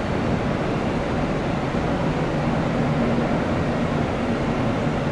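Distant jet engines of an Airbus A320-232, its IAE V2500 turbofans, running on the runway: a steady, even rush of noise with a faint low hum under it.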